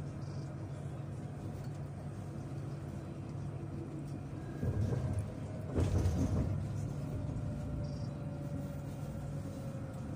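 Alstom Citadis tram running at speed, heard from the driver's cab: a steady low hum and rumble of motors and wheels on rail, with a louder clatter of knocks and clunks about five to six seconds in.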